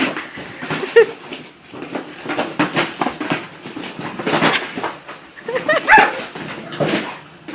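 Dog tearing and scuffling at a cardboard box, a run of short ripping and scraping noises, with two short barks about a second in and near six seconds.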